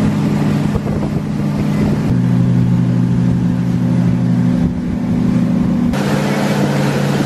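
Motorboat engine running steadily under load while towing a wakeboarder, its tone shifting slightly about two seconds in and again near the end.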